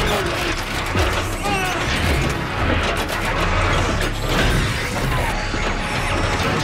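Mechanical sound effects of robotic machinery, whirring and clanking with short sliding whines and sharp metallic knocks, mixed with dramatic background music.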